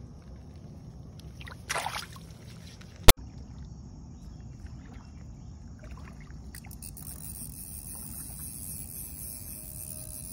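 Lapping water with a brief splash about two seconds in and a single sharp click just after three seconds. From about six and a half seconds on, a steady high insect chorus.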